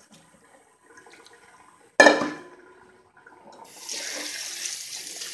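A sharp knock about two seconds in, ringing briefly against the steel sink, then from nearly four seconds a kitchen tap runs steadily onto boiled radish slices in a plastic colander to cool them.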